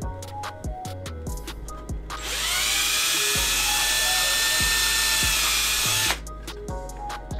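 Cordless drill spinning up and boring into hard plastic for about four seconds, a steady whine that cuts off abruptly, over background music with a ticking beat.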